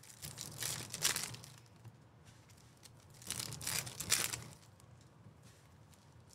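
Trading-card pack wrappers being torn open and crinkled, in two bouts: about a second in, and again from about three to four seconds in.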